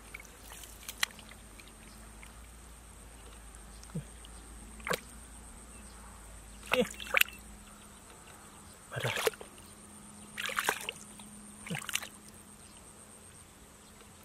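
Hands sloshing and splashing in a shallow muddy puddle, feeling through the mud and water for fish: short, separate splashes every second or two over a quiet steady background.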